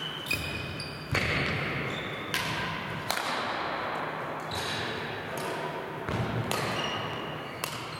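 Badminton rackets striking the shuttlecock in rallies: sharp hits about every one to one and a half seconds, echoing in a large hall, with brief squeaks of shoes on the court floor.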